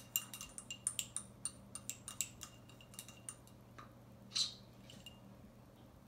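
Eyedropper stirring paint in a small glass jar, clicking and clinking against the glass several times a second for about three seconds, followed by a brief louder hiss about four and a half seconds in.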